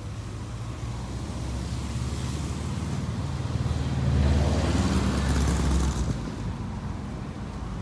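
A road vehicle passes close by: a low engine and tyre rumble swells over a few seconds, is loudest in the middle, and drops away about six seconds in.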